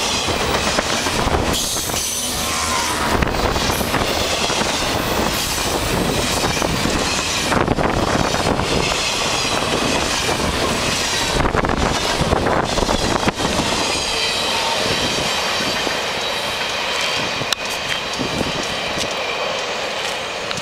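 Intermodal freight train's container cars rolling past close by: a steady loud rumble of steel wheels on rail, with high wavering wheel squeal over it and scattered sharp clicks from wheels crossing rail joints.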